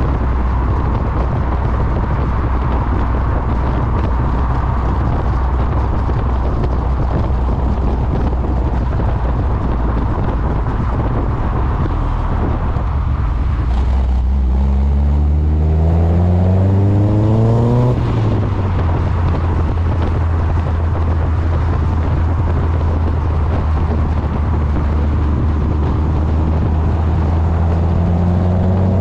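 Westfield sports car's exhaust on the move, heavily buffeted by wind noise on the microphone. The engine note holds steady, rises as the car accelerates about halfway through, drops suddenly, then runs steady again before rising once more near the end.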